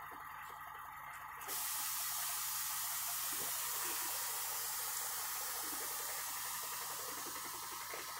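Compressed air hissing out of the truck's air system, starting suddenly about a second and a half after a dash switch is pressed and slowly tapering off.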